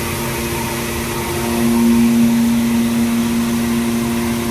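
Mini rice mill plant machinery running: a steady mechanical hum over an even hiss, with paddy grain churning inside the machine. The hum swells slightly about a second and a half in and holds.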